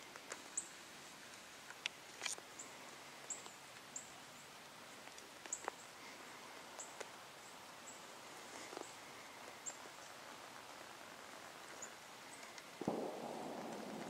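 Quiet open-field ambience with scattered faint, short high chirps and ticks. A brief, louder rustle comes about thirteen seconds in.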